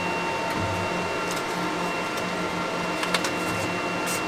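Epilog Fusion M2 laser engraver switched on and idling: a steady machine hum with a constant high whine. A few light clicks come about three seconds in and a short hiss near the end.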